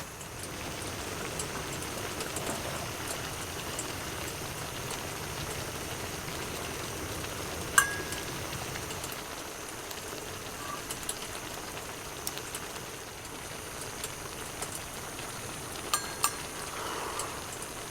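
Pot of stew boiling, with a steady bubbling hiss and a few sharp clinks, the loudest about eight seconds in and two more near sixteen seconds.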